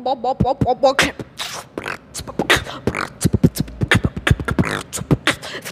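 A boy beatboxing with his mouth. For about the first second he hums a tune over the beat, then he switches to a quick run of kick-drum thumps, clicks and hissing hi-hat sounds.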